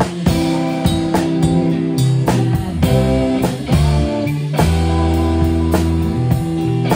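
Live rock band playing: electric guitar and bass notes over a steady drum-kit beat with regular cymbal and drum hits.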